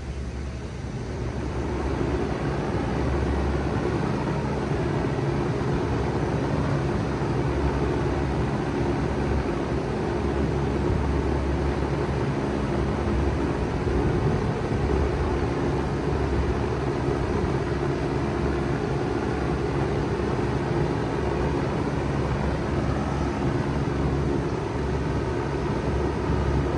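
2006 Bard 3-ton wall-hung heat pump starting up in cooling mode: the sound builds over the first couple of seconds, then runs steadily with a low hum under a rush of air.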